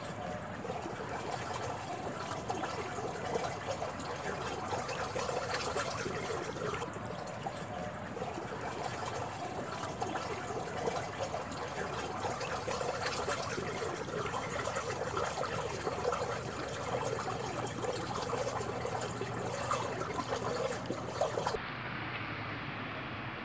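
Water trickling and running along a concrete gutter channel, a steady crackling babble. Near the end it gives way to a smoother, duller hiss.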